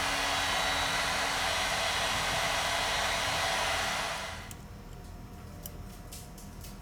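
Hot-air gun blowing steadily, as used to soften adhesive in phone repair, then switched off about four seconds in. A few light clicks follow.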